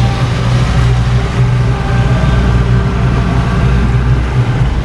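Motorboat engine running steadily at cruising speed, heard from on board, with a constant low hum and a wash of water and wind noise over it.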